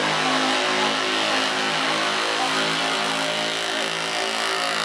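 Gasoline engine of a Dodge Ram pickup running hard at high revs under load as it drags a weight-transfer sled in a truck pull, its note holding fairly steady with slight wavering.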